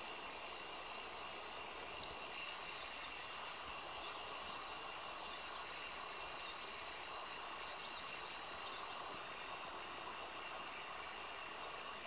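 Welcome swallow singing: faint, short rising chirps and soft twittering, a few seconds apart, over a steady background noise.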